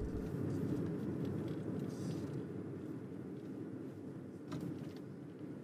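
Low, steady rumble of a car driving, as heard inside the cabin, slowly fading, with a faint click about four and a half seconds in.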